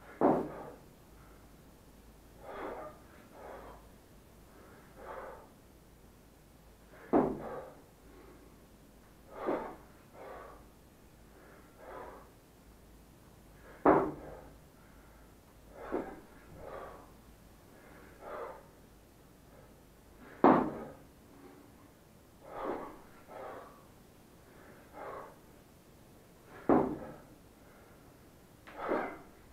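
A man's sharp, forceful breaths while lifting a 28 kg kettlebell. A loud exhalation comes about every six and a half seconds, one per rep, with quieter breaths in between.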